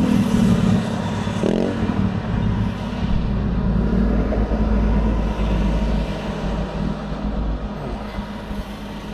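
Road traffic passing on a highway, heard through a parked car's open door: a heavy low engine rumble for the first several seconds that then eases off, with a brief rise and fall in engine pitch as a vehicle goes by about a second and a half in.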